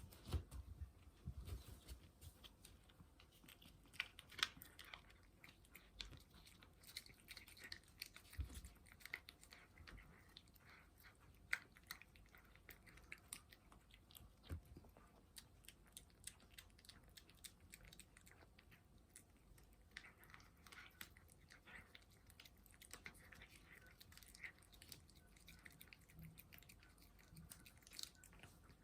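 A cat chewing and eating, quiet, with irregular small clicks and crunches throughout and a few louder soft knocks.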